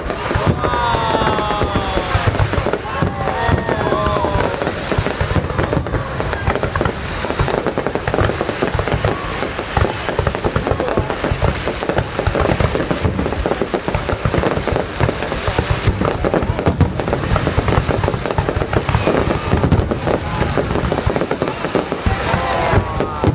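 Fireworks display: a continuous dense barrage of shells bursting with bangs and crackling.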